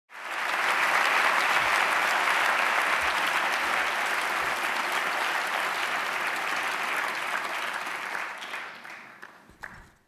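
Audience applauding, a dense patter of clapping that dies away over the last two seconds.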